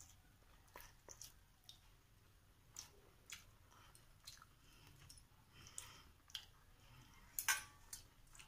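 Faint, scattered clicks and taps of a hand picking food from a small steel plate and a steel bowl of water rice, with a louder clink about seven and a half seconds in.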